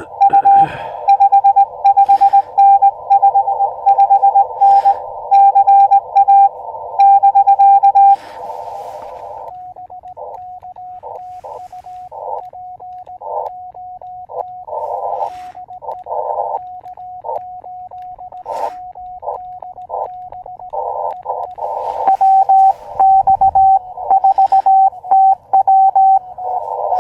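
Morse code (CW) tones from an Elecraft KX2 transceiver. For the first nine or so seconds a loud station is received, keying dots and dashes over band hiss. Then the hiss drops away and a quieter, cleaner sidetone keys out the operator's reply, and the loud received signal in hiss returns a little over twenty seconds in.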